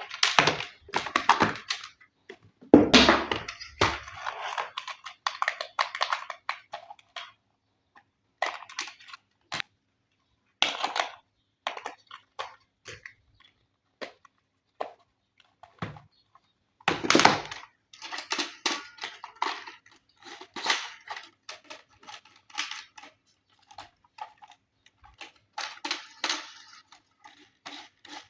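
Toy packaging being handled and opened: irregular bursts of crinkling and rustling with scattered clicks and knocks. The loudest bursts come about 3 seconds in and again around 17 seconds, with sparse ticks in between.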